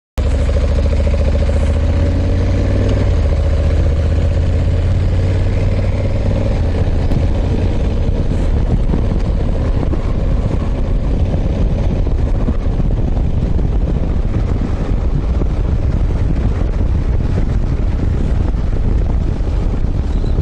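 Honda CRF1100L Africa Twin's parallel-twin engine running steadily while the motorcycle is ridden on the road, with wind rushing over the microphone. It starts abruptly.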